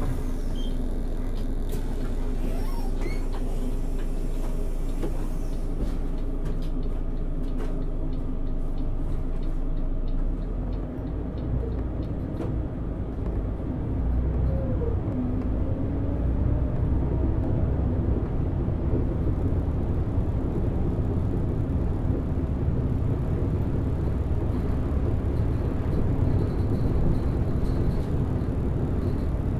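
Volvo B12BLE city bus with its horizontal DH12E straight-six diesel, heard from the driver's seat while under way: steady engine and road noise, easing slightly around ten seconds in and growing louder from about fourteen seconds as the engine pulls harder. A buzz from the bus's faulty display runs underneath, with light ticks and rattles in the middle.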